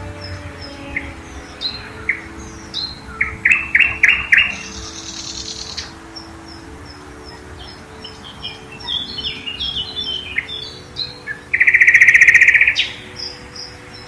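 Several songbirds singing in a forest. Short high notes repeat steadily, with a run of loud clear notes about three and a half seconds in. Near the end comes a loud rapid trill lasting about a second, the loudest sound here.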